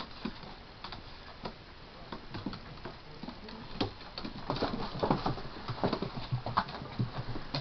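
Papillon dogs' claws clicking and scrabbling on a hardwood floor as they play-fight, in irregular quick patters that grow busier and louder about halfway through.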